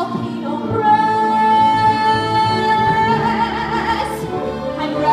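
A woman singing a show tune over a musical accompaniment, holding one long high note for about two seconds before the melody moves on.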